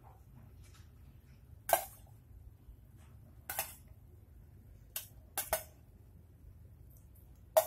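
A metal spoon clinking against a ceramic bowl as boiled squid rings are scooped out into a frying pan: about six short, sharp clinks at uneven intervals.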